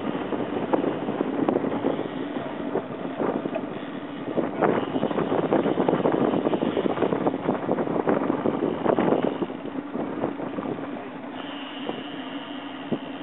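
Motorboat under way: a steady engine hum under heavy, gusting wind noise on the microphone, with knocks from the hull meeting the water. The wind and water noise is loudest in the middle and eases off near the end.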